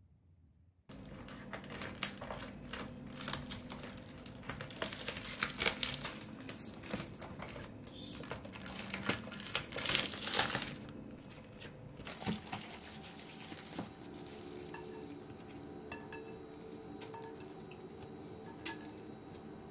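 Plastic wrapping and grocery bags crinkling and rustling as plastic film around an egg tray is cut open with scissors, starting suddenly about a second in. In the second half it is quieter, with occasional light clicks and knocks as eggs are handled.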